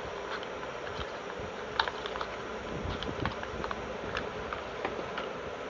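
Cardboard packaging being handled and pried open by hand: scattered light clicks and crinkles, with one sharper click about two seconds in, over a steady background hum.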